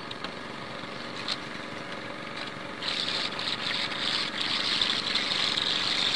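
Small boat engine idling steadily in the background. About three seconds in, a higher whirring joins it.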